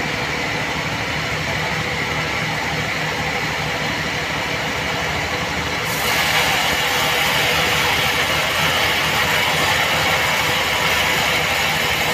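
Band sawmill running with a steady mechanical hum. About six seconds in it turns suddenly louder and hissier as the blade works through a mahogany slab.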